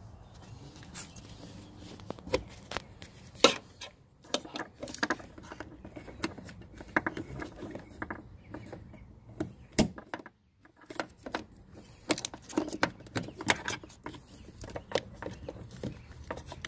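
Irregular clicks, taps and rustles of plastic taillight wiring-harness connectors being handled, unplugged and plugged together by hand, with one sharper click about three and a half seconds in.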